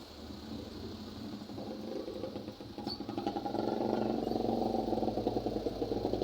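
Motor vehicle engine running with a fast, even pulsing, growing louder about three seconds in.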